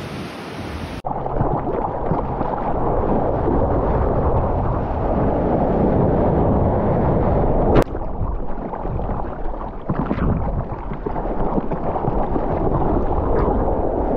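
Water rushing and sloshing around a surfboard, with wind buffeting the microphone, as the surfer paddles and rides at water level. A single sharp click comes about halfway through.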